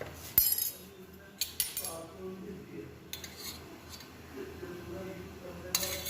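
Spoon clinking against a bowl as curd is spooned into flour: one sharp tap about half a second in, then a few lighter clinks and some scraping.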